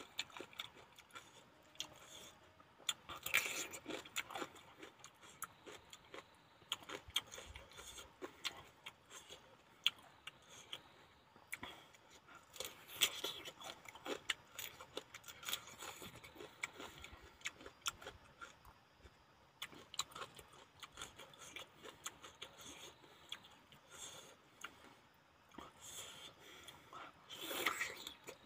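Close-up eating sounds: chewing and crunching of a raw green vegetable, with scattered sharp clicks and scraping as the peel is handled. A louder bite and chewing come near the end.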